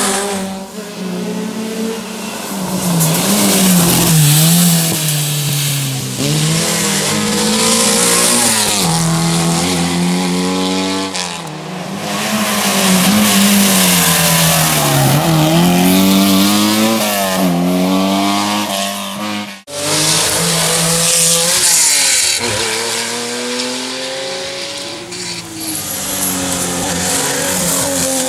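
Historic rally cars running hard on a stage, their engines revving up and dropping back over and over through gear changes. There is a sudden brief break about two-thirds of the way through, after which the engine sound carries on.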